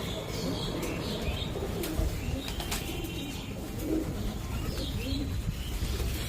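Pigeons cooing in a string of low, repeated coos, with higher chirping calls and a few sharp clicks mixed in.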